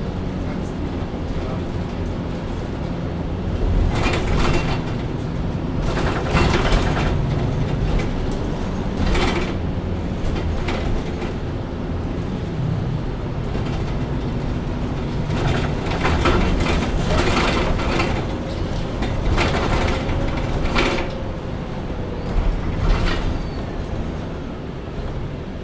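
Engine of a MAN Lion's City Ü bus idling while the bus stands still, heard from inside the passenger compartment as a steady low rumble. Short bursts of noise break in now and then, about nine times.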